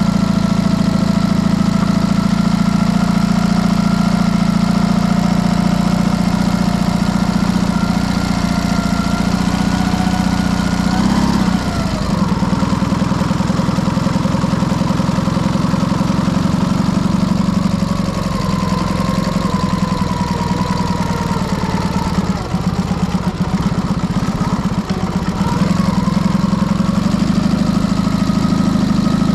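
Dnepr motorcycle's flat-twin engine running steadily, its note dipping and changing about eleven seconds in and again around twenty seconds in.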